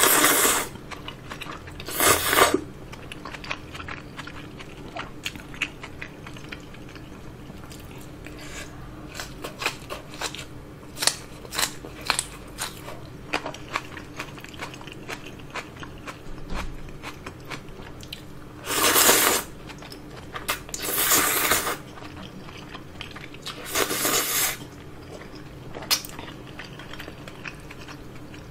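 Thick udon noodles slurped loudly in five separate pulls, one right at the start, one about two seconds in and three in the last third. Between them comes close-up chewing with many small mouth clicks.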